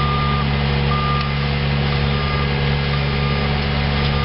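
Bobcat compact track loader's diesel engine running steadily while its backup alarm beeps about once a second as the machine reverses.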